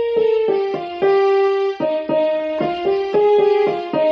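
Yamaha PSR-I455 portable keyboard playing a slow melody of single notes in Dual Voice mode: the piano tone with a second voice layered behind it.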